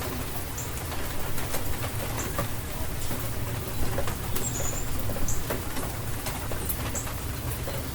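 Steady rain with scattered drops pattering and clicking, over a low rumble. A few short, high chirps sound through it now and then.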